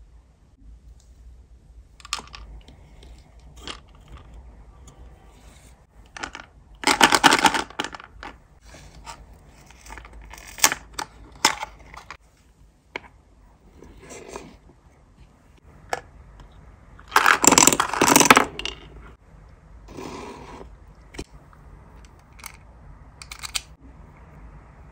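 Small sweets and their plastic and cardboard packaging handled by hand: a string of light clicks, taps and rattles, with two louder bursts lasting about a second each, about seven and seventeen seconds in.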